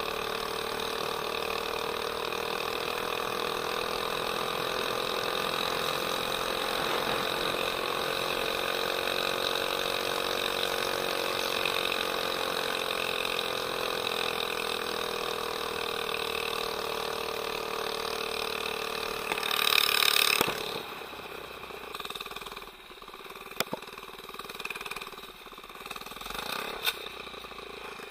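Homemade scooter's 79cc single-cylinder engine running under way through its custom header, the note rising and falling slowly with speed. About twenty seconds in there is a brief loud burst and the engine note falls away, leaving it faint with scattered clicks and rattles as the scooter coasts: the chain, too loose, has come off the sprocket.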